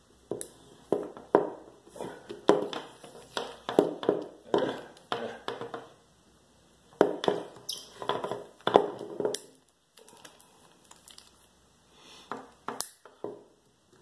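Small wire cutters biting again and again into the coated braided-steel cable of a Kryptonite cable bike lock. They make a run of sharp crunching snips about twice a second, which breaks off briefly past the middle, then a lull before a few last snips near the end. The cable is not yet cut through.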